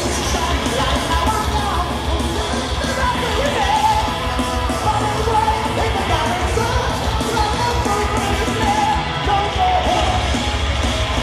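Live power metal band performing, with singing over electric guitars and drums.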